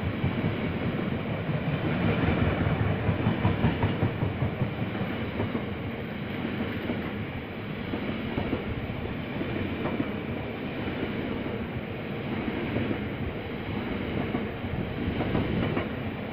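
Long train of loaded Freightliner bogie hopper wagons rolling slowly past, with a steady rumble and an irregular clatter of wheels over the rail joints.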